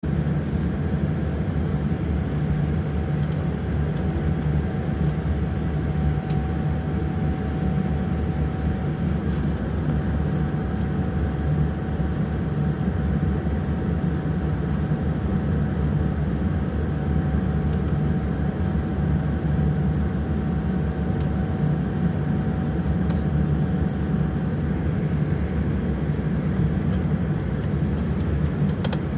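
Jet airliner cabin noise heard from a window seat while the plane taxis: a steady low rumble of the engines and rolling, with a faint steady whine through the middle.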